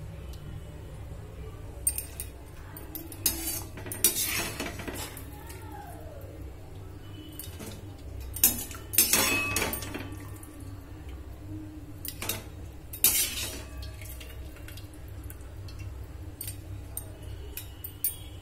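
Steel perforated spoon clinking and scraping against a metal pot and a stainless steel colander as boiled raw mango pieces are scooped out to drain, about half a dozen irregular clinks with the loudest a little past the middle.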